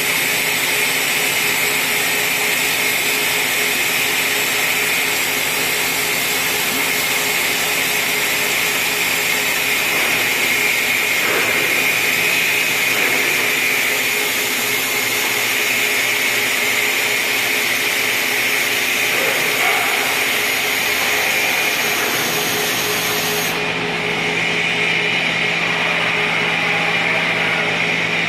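Toshiba TMD 13 CNC vertical boring mill running under power: a steady mechanical whirring hum with a high hiss, like a vacuum cleaner. About three-quarters of the way through, a low hum sets in and the high hiss drops off.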